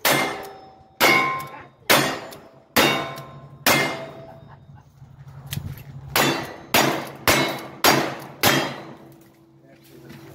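Two strings of five revolver shots, the first about a second apart and the second a little quicker after a pause of about two seconds. Steel targets ring after the shots.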